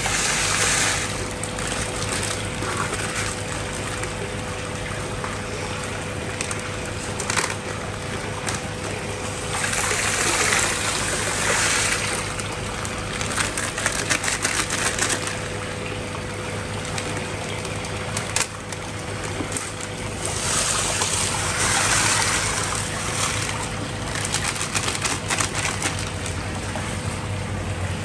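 Water bubbling and sloshing in a plastic tub from an aerator airstone, with a steady low hum underneath. Salt pours into the water at the start, and louder rushing surges come about three times.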